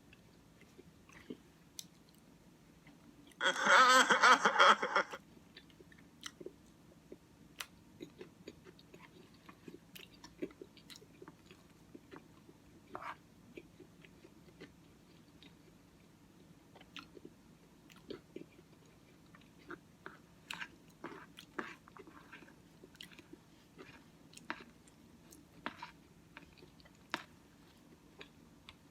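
Close-miked chewing of Cookie Crisp cereal in oatmeal: scattered short mouth clicks and smacks. A loud noisy burst of about a second and a half comes a few seconds in.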